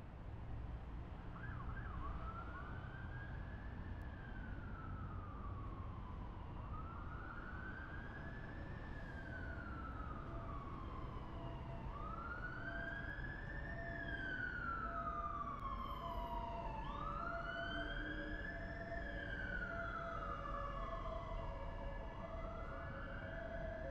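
An emergency vehicle's siren wailing, its pitch rising and falling slowly about once every five seconds, starting about two seconds in, over a low steady rumble of city traffic.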